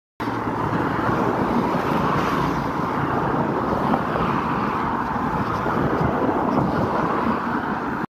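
Steady rushing street noise, cutting in abruptly just after the start and cutting off abruptly at the end.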